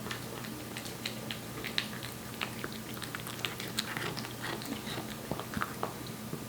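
A Korean Shorthair cat eating wet cat food: quick, irregular wet smacking and chewing sounds, several a second.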